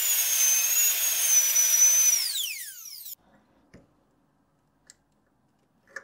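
Ridgid cordless drill with a very small bit drilling into the steel safe door, running with a steady high whine. About two seconds in the pitch falls as the motor winds down, and it stops about three seconds in.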